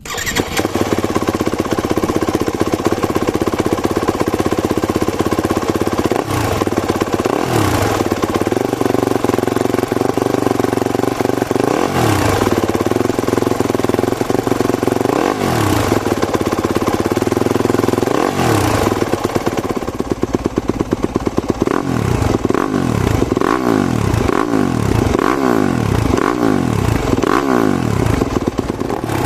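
2022 Yamaha YZ250FX's 250 cc single-cylinder four-stroke engine running through an FMF PowerCore 4 silencer. It idles and is blipped up about five times, then in the last several seconds it is revved in a quick string of short throttle blips.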